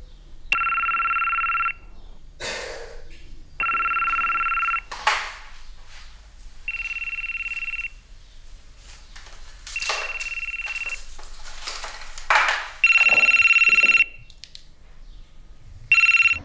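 Mobile phone ringing with a steady two-tone electronic ring, about a second on and two seconds off, over and over. Between the rings come short rustles and handling noises as a small cardboard box is opened.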